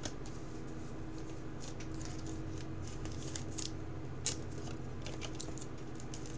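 Light, scattered clicks and rustles of a trading card being handled and fitted into a rigid clear plastic toploader, with one sharper click about four seconds in.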